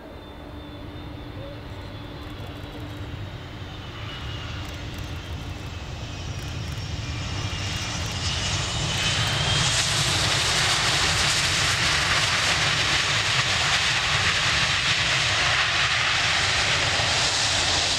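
Boeing 757-200 jet engines on landing approach, growing louder as the airliner nears, with a high whine that slowly falls in pitch. About halfway in the sound becomes a loud, steady roar.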